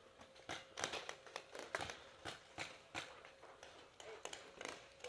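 Paintball markers firing: sharp pops and clicks at an irregular pace, several a second, the loudest of them a little under a second in and near the middle.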